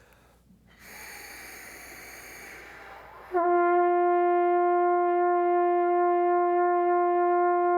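Trumpet blown with air alone, no lip buzz: a soft rush of breath through the horn for about two and a half seconds, then a single clear note speaks about three and a half seconds in and is held steady.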